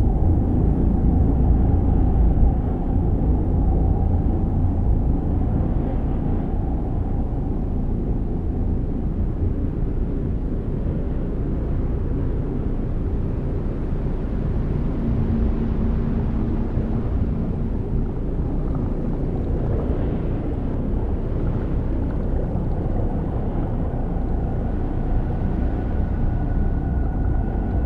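Layered, homemade imitation of a planet's 'space sound': a deep, steady rumbling drone with a hiss-like band above it. A low steady tone comes in briefly about halfway through, and a higher steady tone joins in the last few seconds.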